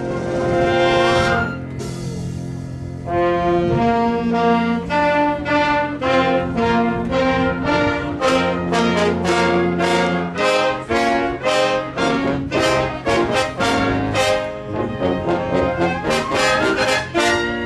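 Brass band playing an instrumental hymn tune, trombones and trumpets holding sustained chords, then a run of short punctuated chords.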